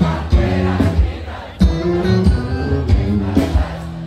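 Live gaúcho band music played through a loud stage PA, with held instrumental notes, a steady low beat and singing.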